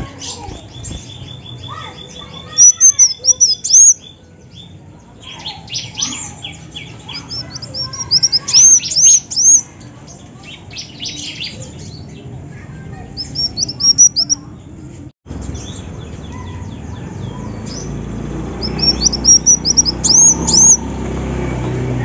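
Female kolibri wulung, a sunbird, singing: bursts of rapid, high-pitched chirps and twitters that come in four clusters a few seconds apart, with a fast ticking run near the start.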